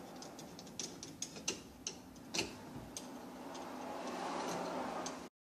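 Screwdriver tightening a hose clamp on a dishwasher drain hose: a series of irregular small ticks and clicks, thinning out after about three seconds. The sound cuts off abruptly near the end.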